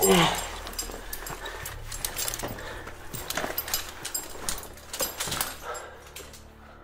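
A caver straining as he climbs a rope: a short, loud groan of effort right at the start, then breathing and scattered knocks and clicks of climbing gear and boots against rock.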